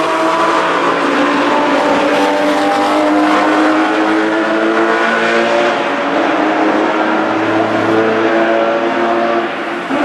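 Porsche sports car engine running hard at high revs on a racetrack, its pitch gliding gently and holding high. The sound dips briefly near the end.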